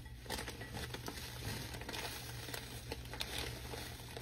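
Faint crinkling of a plastic bag of brown sugar as it is squeezed and tipped to pour sugar into a measuring cup, with a few soft ticks.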